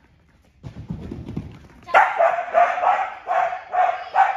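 Dog barking repeatedly in an agility run, about two to three barks a second, starting about two seconds in after a second of low thudding.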